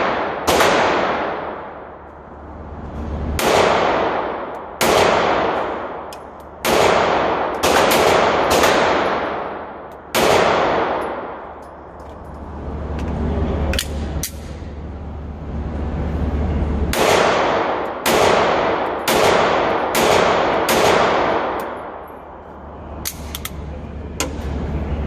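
Sig P365 pistol firing more than a dozen shots at a slow, uneven pace, about one every second or so. Each report rings on with a long echo off the concrete-block walls of an indoor range.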